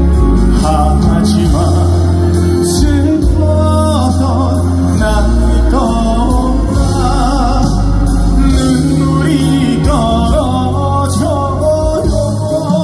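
Live trot ballad performance: a male singer over full band accompaniment with a strong bass line.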